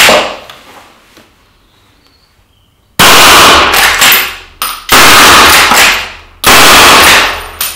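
Three shots in quick succession from a .243 Strasser Solo Panther straight-pull rifle fitted with a Sonic 35 moderator, with the straight-pull bolt worked between shots. They come about two seconds and then a second and a half apart, each very loud and echoing. A sharp click comes right at the start.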